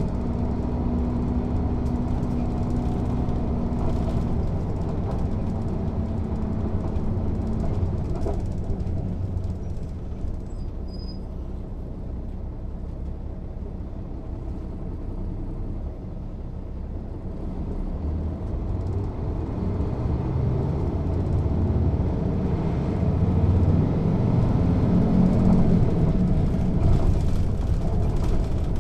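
Diesel engine of a Mercedes-Benz O 407 city bus running under way. It runs steadily at first, eases to a quieter stretch near the middle, then builds up again and grows louder toward the end.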